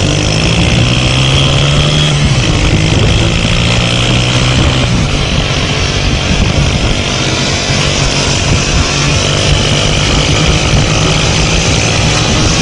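Small motorcycle engine revving hard, its pitch climbing over the first second or so, then held high and fairly steady, with a brief drop about five seconds in.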